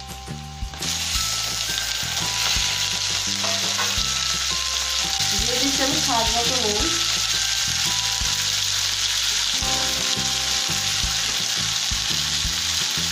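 Raw chicken pieces hitting hot mustard oil and fried onions in a kadai. They sizzle all at once about a second in and keep frying steadily, with a wooden spatula stirring.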